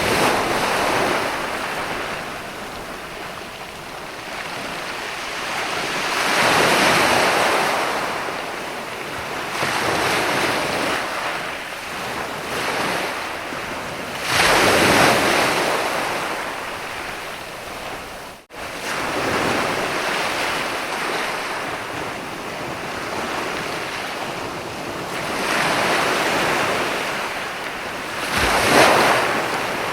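Ocean waves breaking and washing up a sandy beach, the surf swelling and ebbing every few seconds. The sound cuts out abruptly for a moment about two-thirds of the way through.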